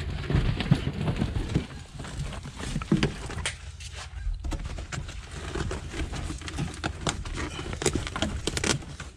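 Old molded car carpet being handled and pulled loose from the floor pan: rustling and scraping with many irregular knocks and clicks.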